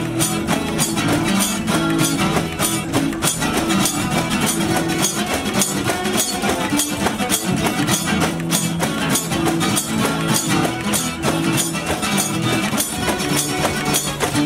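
One-man-band street music with no singing: a strummed acoustic guitar over a steady, even percussion beat.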